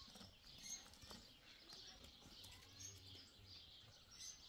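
Near silence in the open air, with a few faint, short bird chirps now and then.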